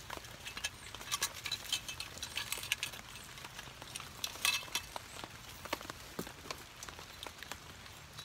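Small metal camping gear (a portable backpacking stove and its parts) clinking and knocking irregularly as it is handled, with rain pattering on the tarp overhead.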